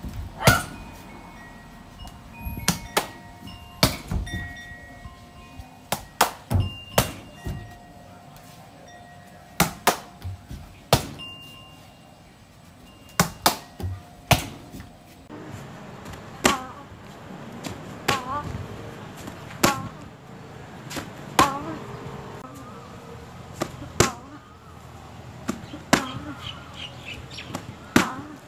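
Kicks landing on taekwondo targets, one sharp slap per strike, repeated. In the first half the slaps come in quick doubles and triples on handheld kick paddles. From about halfway they come singly, roughly every second and a half, on a padded kick shield.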